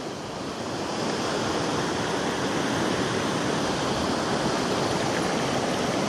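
Fast, rain-swollen mountain stream rushing over rocks: a steady, even wash of water noise.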